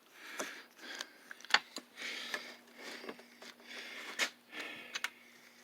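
Hands unplugging plastic wiring-harness connectors under a Lexus LS400 power seat: several sharp, irregular clicks with soft rustling and handling between them.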